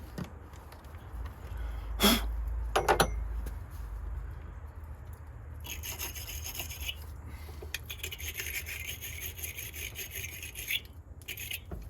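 Wire-brush battery terminal cleaner scrubbing a corroded battery terminal clamp, a scratchy brushing that starts about six seconds in and lasts about five seconds, scraping off acid residue. Two sharp knocks come earlier, about a second apart.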